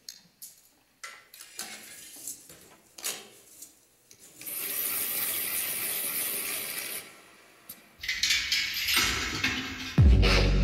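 Opening of an electronic dance soundtrack: scattered mechanical clicks and ticks, a hissing swell in the middle, then a deep bass hit near the end.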